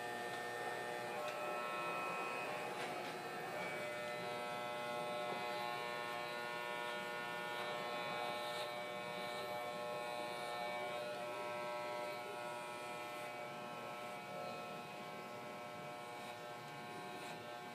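Electric hair clippers running with a steady buzz as they cut hair, a little quieter in the last few seconds.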